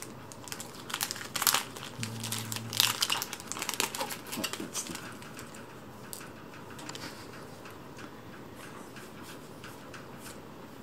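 Crinkling, rustling and light clicks of Magic: The Gathering cards and their packaging being handled. The sound is busiest in the first five seconds, then thins to a few faint clicks.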